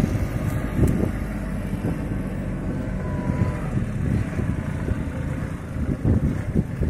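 Compact tractor engine running steadily under load as it tows a sugarcane planter over tilled soil, with an uneven low rumble.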